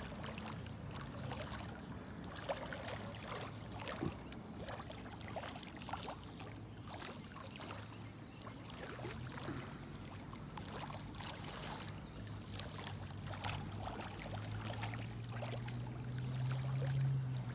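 Faint outdoor ambience of a waterlogged yard after heavy rain: scattered drips and trickling water, with a steady thin high-pitched whine. A low hum swells near the end.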